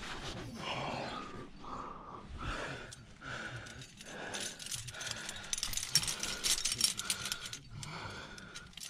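Metal climbing gear on a harness, carabiners and protection clinking and jangling against each other as the climber moves, thickest in a busy run of clinks in the second half.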